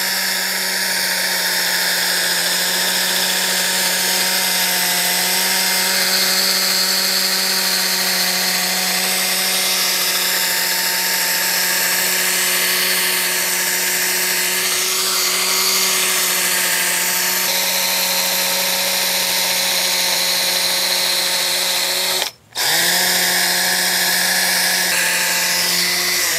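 Electric drill spinning a 3000-grit sanding pad against a plastic headlight lens: a steady motor whine over the hiss of wet-sanding. The drill stops for a split second about three-quarters of the way through, then spins back up.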